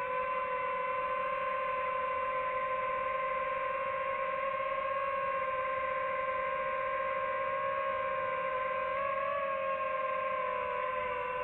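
DJI FPV drone's motors and propellers whining at a steady pitch in cruise, the pitch lifting slightly and wavering near the end as the throttle changes.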